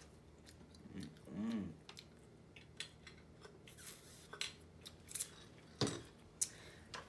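Quiet eating at a table: chewing and scattered small clicks and taps of cutlery and food containers, with a short hummed voice about a second and a half in.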